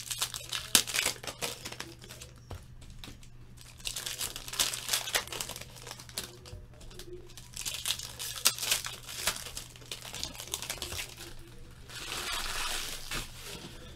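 Foil trading-card pack wrappers crinkling and tearing as packs are opened by hand, in several bursts of a few seconds each.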